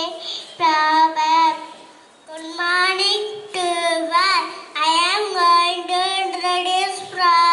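A young child singing a song into a microphone, in held, gliding notes with a short break about two seconds in.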